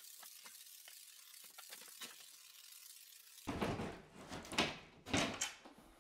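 Faint hissing and crackling of a Great Stuff Pro foam adhesive gun laying beads on the subfloor. About three and a half seconds in, a plywood sheet is set into place, with scraping of wood on the floor and several sharp knocks.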